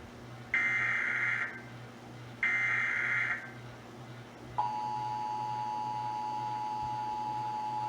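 Emergency Alert System test broadcast: two short, identical bursts of the SAME digital header data, each a buzzy screech of about a second, then about four and a half seconds in the two-tone EAS attention signal starts and holds steady.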